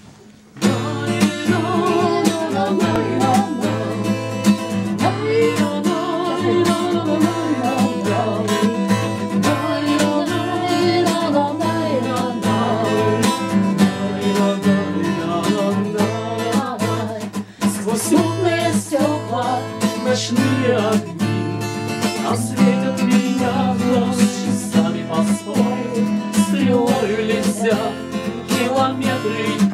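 Steel-string acoustic guitar strummed steadily, starting about half a second in: the instrumental introduction to a song.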